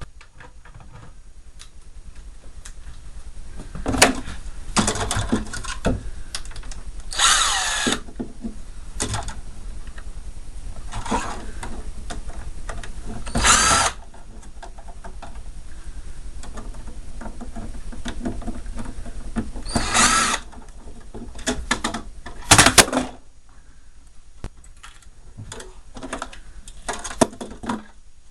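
Power drill-driver running in short bursts, about four times, backing out screws to take the fan motors off a mini fridge. Clicks and clatter of parts being handled come between the bursts.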